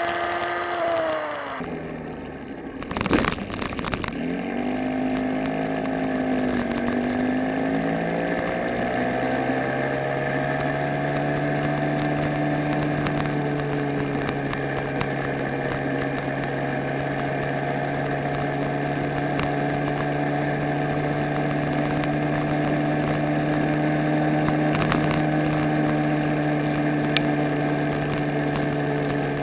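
Small motorcycle engine heard from the moving bike, with road and wind noise. The engine note drops in the first second or two, there is a sharp knock about three seconds in, and after some shifting in pitch it settles into a steady drone at cruising speed.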